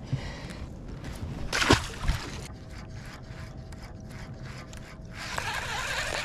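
Water sloshing and splashing around a fishing boat, with a sharp splash or knock about a second and a half in and a dull thump just after; from about five seconds a steady splashing hiss sets in.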